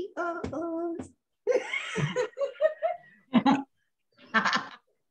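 People laughing, with snatches of voice, heard over a video call.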